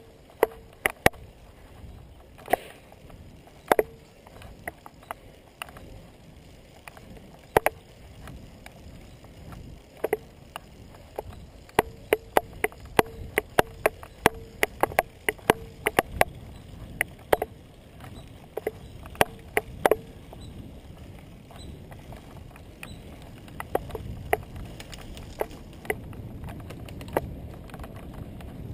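Bicycle riding over rough, cracked pavement: irregular sharp clicks and knocks as the bike and its handlebar-mounted camera jolt over the bumps, over steady tyre and wind noise that grows louder near the end.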